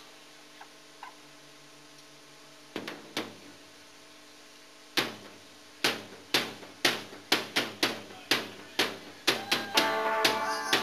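Stage amplifier hum, then a couple of taps and, about five seconds in, a drummer starting a steady beat of sharp strokes, about two a second; a guitar chord comes in near the end as the song begins.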